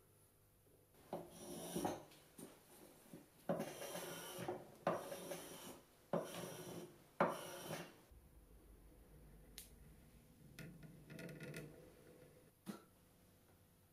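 Wooden spokeshave shaving a curved walnut chair rail in about five rasping strokes of roughly a second each. Softer rustling and a single light knock follow near the end.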